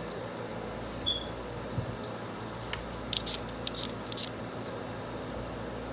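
Vegetable peeler scraping the skin off a raw russet potato, several quick short scrapes a little past the middle, over a steady background hum.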